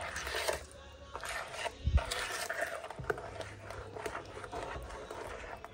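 Metal spoon stirring thick chocolate batter in a mixing bowl, a series of wet scraping strokes against the bowl, with a dull knock about two seconds in.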